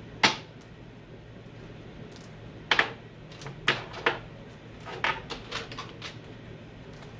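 Tarot cards being shuffled and handled on a desk: a series of sharp taps and clicks as the deck and cards are knocked and set down. The loudest come just after the start and as a double tap near three seconds in.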